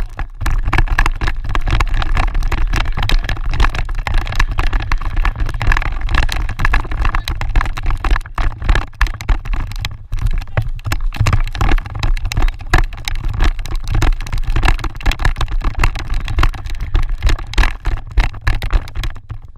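Wind buffeting the microphone outdoors: a steady low rumble with constant irregular crackle.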